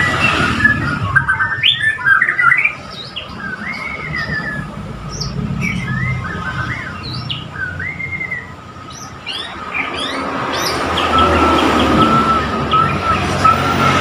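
White-rumped shama (murai Borneo) singing a run of short, varied whistled phrases that slide up and down in pitch. A thin steady high tone runs beneath it and grows stronger near the end.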